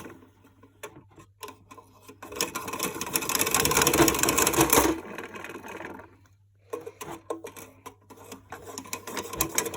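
Plastic toy washing machine clicking and rattling as its drum mechanism is turned and handled by hand: scattered clicks, then a couple of seconds of dense rapid rattling, a short lull, and more clicks.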